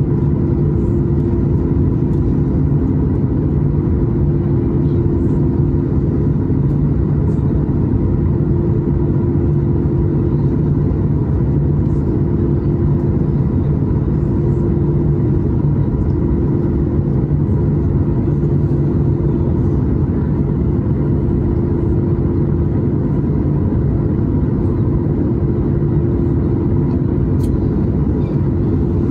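Steady rumble of a Boeing 737 MAX's CFM LEAP-1B jet engines heard inside the cabin, with a few steady hums on top and no change in level.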